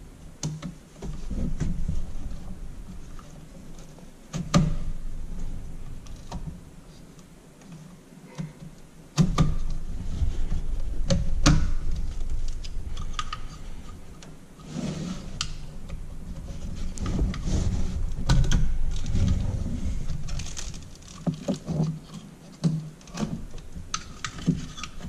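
Hands-on work noise: scattered sharp clicks and knocks with rustling and low rumbling, as the red locking levers on the wiring connectors are popped up and the plugs pulled off the back of a pickup's engine computer (PCM).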